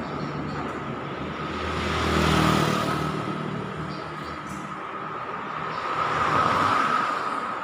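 Road traffic: vehicles passing on a city street, their engine and tyre noise swelling and fading twice, once about two seconds in and again near the end as a small hatchback car drives by.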